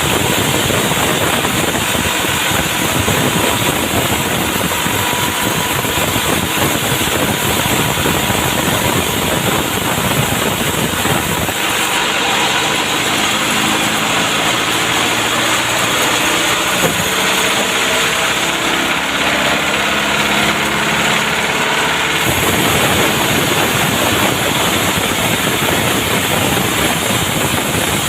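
An engine running steadily. For about ten seconds near the middle it takes on a clearer, pitched hum, then goes back to its earlier even sound.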